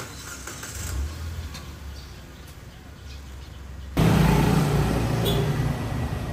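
Low street background at first. About two-thirds of the way in, a motor scooter's engine comes in loud and close, then eases off a little as it pulls away.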